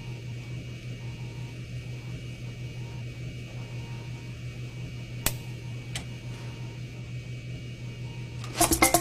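Steady low hum with faint hiss, broken by two sharp snips about five and six seconds in: nail clippers cutting through wires. A beat of music comes back in near the end.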